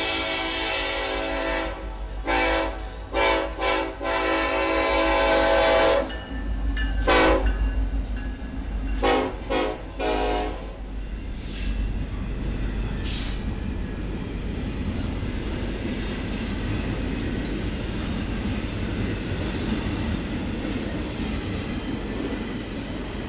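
Ferromex freight locomotive air horn sounding a chord in a series of blasts: a long one, a quick run of short toots, another long blast, then more short toots that end about ten seconds in. After that the steady rumble of the train rolling past, with one brief wheel squeal.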